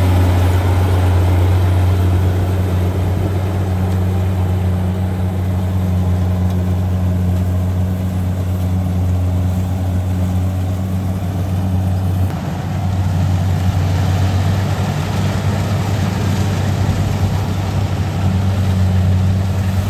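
Kubota DC-70 rice combine harvester running steadily as it cuts and threshes rice: a constant low engine hum with machine noise over it, briefly dipping about twelve seconds in.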